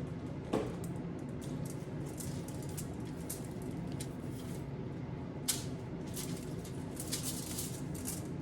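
Light crinkling and small clicks from hands pushing chocolate chips into a banana sitting in aluminium foil, with a couple of sharper ticks, over a low steady hum.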